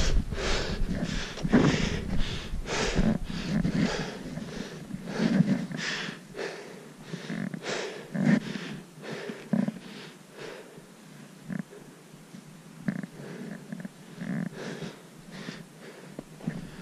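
A hiker's footsteps crunching through snow, with hard breathing close to the microphone; the steps come about one or two a second, louder in the first few seconds and quieter and sparser later.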